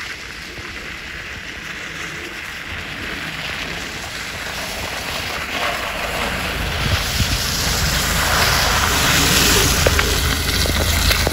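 Renault Scénic car coming down an icy, snow-covered track with its engine running and its tyres crunching and slipping on the ice. The car is sliding back down the slope in gear, without braking. The sound grows steadily louder as the car nears, and the low engine hum comes in strongly in the last few seconds.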